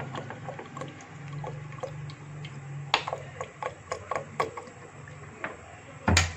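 Cooking oil poured from a plastic bottle onto sliced onions in a pot, with a low broken gurgle for the first few seconds. Then scattered small clicks and crackles as a wooden spoon works the onions, and one loud knock near the end.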